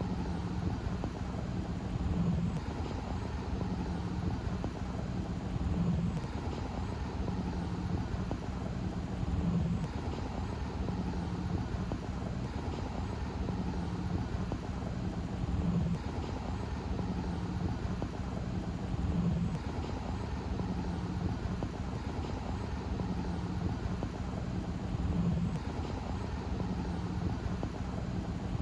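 Steady outdoor background noise with a low hum that swells briefly about every three and a half seconds.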